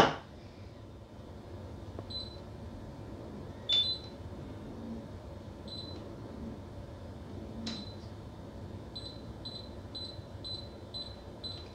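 Short electronic beeps from a glass-top cooktop's touch controls: single beeps every couple of seconds, a click with some of them, then six quick beeps about half a second apart near the end. A sharp knock right at the start.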